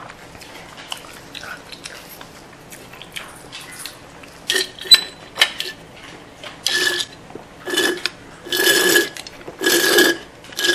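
Soda sucked from a can through a metal straw in a series of slurping pulls about a second apart, each a noisy gurgle with the same steady whistle-like note: the can is running dry, and air is drawn in with the last of the soda. Faint clicks of chewing and chopsticks come before it.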